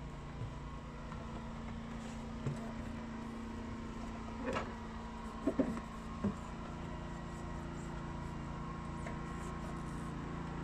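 A steady low mechanical hum, like a motor running, with a few short soft knocks between about two and six seconds in.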